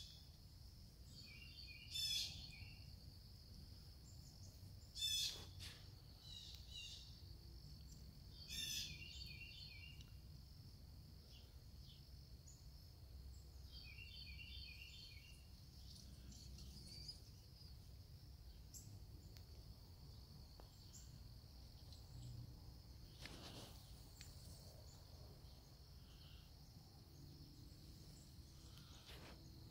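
Birds calling: four sharp, loud calls in the first nine seconds and a couple of short chirping phrases, over the steady high trill of insects.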